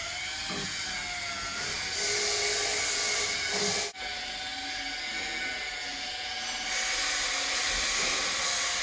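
Dent-repair spotter welding a zigzag copper wiggle wire onto a bare-steel rear fender, making a steady hissing buzz. It is louder in two stretches of about two seconds, and it cuts out sharply for a moment about four seconds in.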